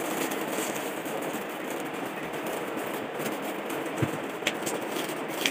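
Clear plastic wrapping on a parcel rustling and crinkling steadily as hands squeeze and turn it, with a few sharper crackles about four seconds in and near the end.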